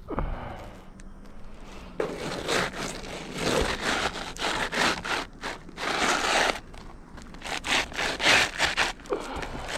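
Irregular scraping and rustling of a roof shingle being worked loose and pulled out, in uneven strokes of different lengths.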